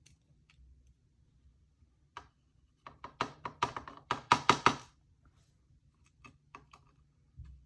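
Small metal lock parts being handled: scattered light clicks, then a quick run of a dozen or so sharp clicks and taps about three seconds in, lasting under two seconds.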